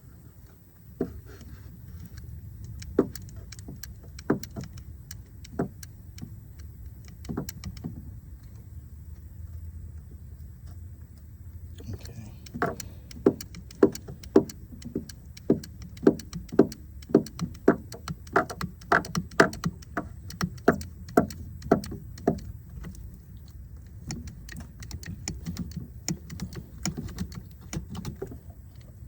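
Hand-pumped hydraulic wire crimper crimping a terminal lug onto a battery cable: sharp clicks from the pump handle, a few spaced strokes at first, then a steady run of about two clicks a second for some ten seconds, followed by lighter clicks near the end.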